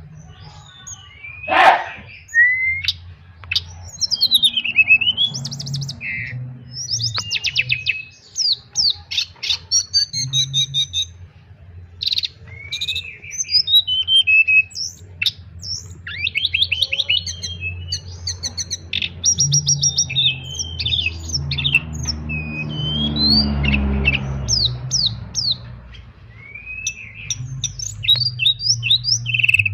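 Tledekan songbird singing without pause: a fast string of varied high chirps, trills and short sweeping whistles. A low hum sits underneath, and a rushing noise swells and fades around the middle of the second half.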